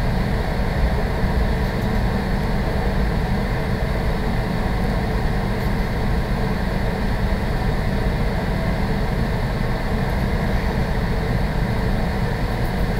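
A steady low hum with a hiss over it, unchanging throughout, like a fan or air-conditioning unit running in the room.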